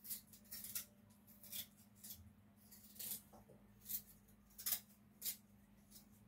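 Small kitchen knife cutting and scraping a piece of ginger root held in the hand: faint short scrapes and clicks, about a dozen at an irregular pace.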